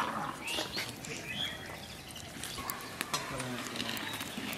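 Thin fish curry boiling in a large steel kadai and stirred with a long metal ladle: a low steady hiss with a few light clicks and scrapes. Faint animal calls and distant voices sit behind it.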